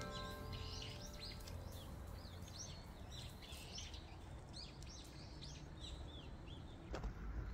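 Birds calling repeatedly in short, arching chirps, faint over a quiet background, with a few knocks near the end.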